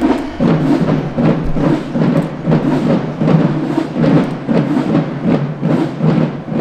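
Marching band drumline playing a marching cadence: loud drum strokes in a steady beat, about two to three a second.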